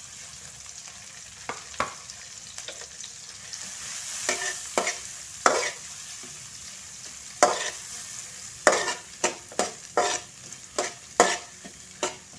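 Shallots, ginger, pandan leaves and whole spices sizzling in hot oil in a wok, with a metal spatula scraping and clanking against the pan as they are stirred. The clanks are sparse at first and come about once or twice a second in the second half.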